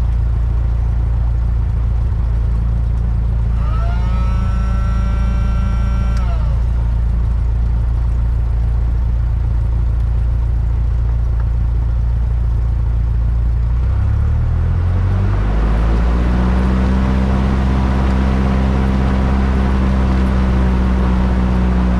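A single-engine light plane's piston engine and propeller, heard from inside the cockpit: it runs steadily at low power, then about 14 seconds in the throttle is opened and it settles at a higher, louder pitch, as in a pre-takeoff engine run-up. About four seconds in, a steady tone with a sliding onset sounds for two or three seconds over the engine.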